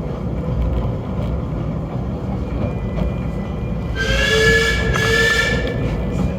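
Snowdon Mountain Railway rack train running with a steady low rumble; about four seconds in, the train's warning signal sounds once for about a second and a half, a chord of steady tones.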